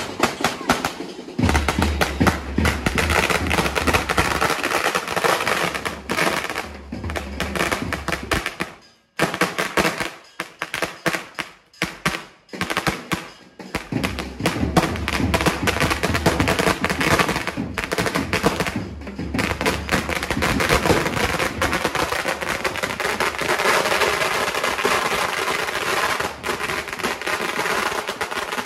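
A 3000-round "sawa" firecracker string going off: a rapid, continuous crackle of small firecrackers, briefly dropping out about nine seconds and again about twelve seconds in before picking up again.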